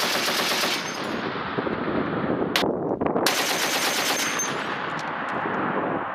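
M2 Browning .50-calibre heavy machine gun firing long bursts of automatic fire: one burst at the start, a single report about two and a half seconds in, then a second long burst just after three seconds, the reports echoing across the range.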